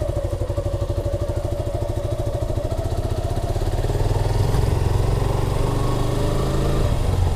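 Motorcycle engine running while riding, with a fast steady pulse. Its note dips slightly, then rises and grows a little louder over the second half.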